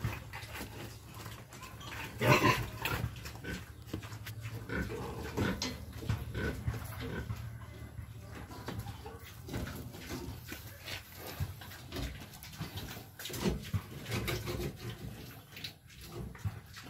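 A heavily pregnant sow grunting as she is pushed into a concrete pen, mixed with scattered knocks and rattles, with the loudest sound about two seconds in.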